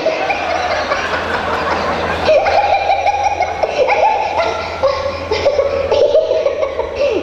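Audience laughing, with several voices at once and some laughs held long and high.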